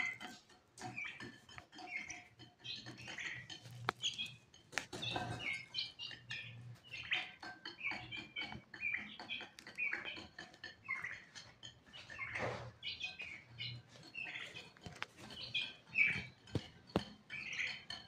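Birds chirping and tweeting busily, many short high calls overlapping, with a few sharp knocks between them.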